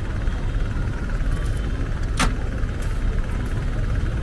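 Road traffic on a busy city street: a steady rumble of passing vehicles, with one sharp click about two seconds in.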